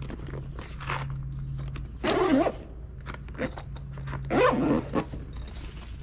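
Zipper of a backpack tool bag pulled shut in two long zips, about two seconds in and again about four and a half seconds in, with tools clicking and rustling as they are packed away.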